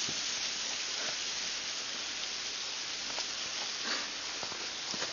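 A steady hiss, with a few soft scuffs and knocks between about three and five seconds in, from two dogs wrestling in the snow.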